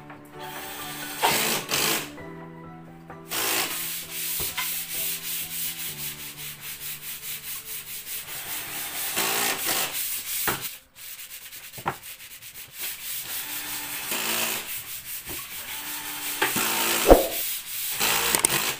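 Cordless drill boring into a wooden cabinet door, the bit grinding through the wood, then driving screws in short runs to fix concealed cup hinges.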